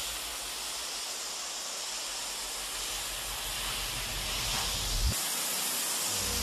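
Steady hissing rush of noise with an unsteady low rumble underneath, and one short knock about five seconds in.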